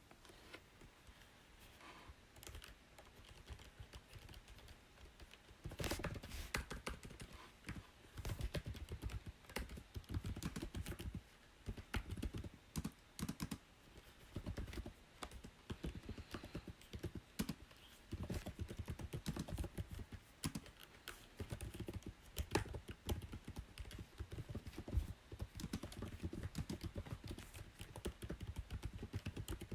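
Typing on a computer keyboard: quick runs of key clicks in bursts with short pauses, fainter and sparse for the first few seconds, then denser from about six seconds in.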